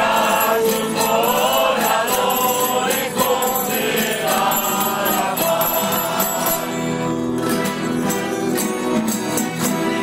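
A group of men and women singing a traditional dawn song together, with small bells jingling in rhythm along with them.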